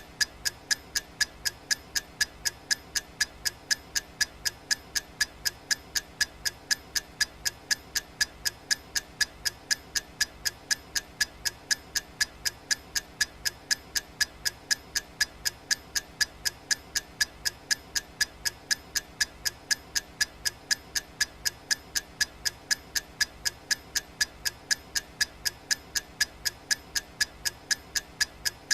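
Clock-style ticking sound effect of a countdown timer: crisp, evenly spaced ticks at a steady, fairly fast rate of several a second.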